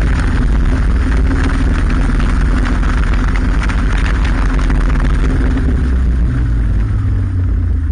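Motorcycle engine running steadily while riding at road speed, with heavy wind rumble on the bike-mounted microphone.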